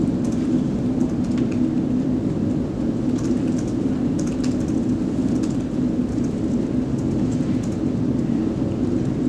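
Steady low rumbling background noise with faint scattered clicks.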